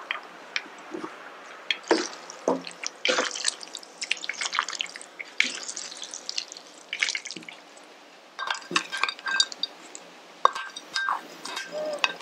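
Spaghetti being tossed through a thick avocado sauce with tongs in a stainless steel bowl: wet, sticky squelches of the noodles with many short clicks. In the second half the tongs clink against the bowl, with a brief metallic ring.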